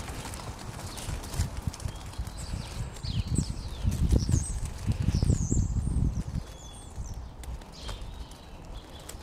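Irregular low thuds and rumble, loudest about four to six seconds in, with faint high chirps of small birds around the middle.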